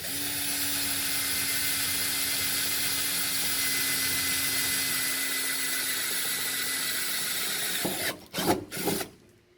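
Electric drill running steadily for about eight seconds, drilling the seatbelt anchor holes in the car's body, then stopping; a few short knocks follow near the end.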